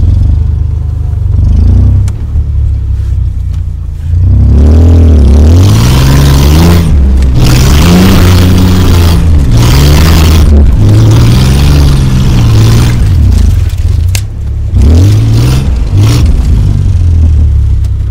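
Toyota 4x4 truck's engine heard from inside the cab, revving up and falling back again and again as it drives through snow. A loud rushing noise covers the revs for several seconds in the middle.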